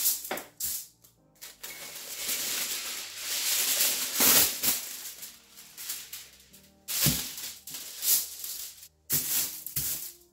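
Sheet of aluminium foil being handled, crinkling and rustling in irregular bursts as it is pulled off the roll and smoothed flat by hand.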